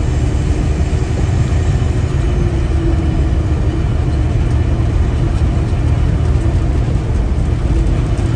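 Freightliner Classic XL semi truck cruising at highway speed, heard from inside the cab: a steady diesel engine drone mixed with tyre and road noise.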